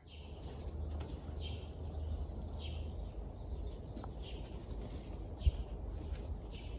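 A bird chirping in the background at an even pace, about once a second, over a low steady outdoor rumble, with one soft thump about five and a half seconds in.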